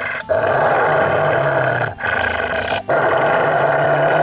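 Rottweiler growling with teeth bared: three long, rough growls broken by two short pauses.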